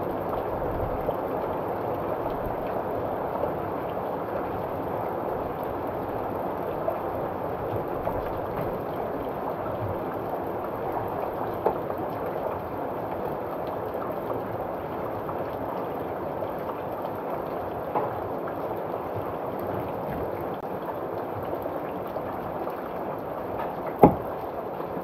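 Heavy rain falling in the forest, a steady rushing hiss with a few sharp taps of drops or knocks, the loudest near the end.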